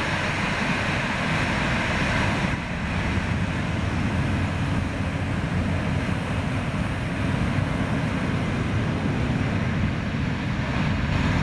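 Jet engines of a Boeing 737-800 running at taxi power as the airliner rolls past: a steady low rumble. A brighter hiss over it fades about two and a half seconds in.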